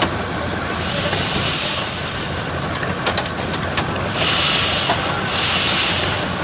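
1909 Case 20-horsepower steam tractor getting underway: steam hisses out in three long bursts of about a second each, over a steady low rumble, with a few light clicks between them.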